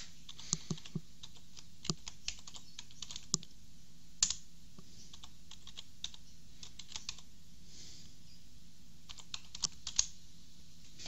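Keys tapped on a computer keyboard in short clusters with pauses between them, as a password is typed and entered at a terminal prompt. A few keystrokes land harder than the rest, about four seconds in and near the end.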